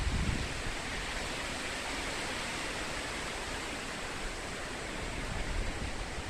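Storm wind rushing steadily through forest trees, a constant hiss. Wind buffeting on the microphone eases off about half a second in and picks up again near the end.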